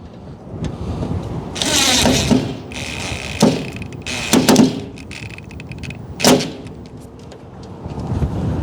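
Clunks, knocks and rattles of tools and hardware being handled during hands-on work, with a few sharp knocks and a faint brief whine.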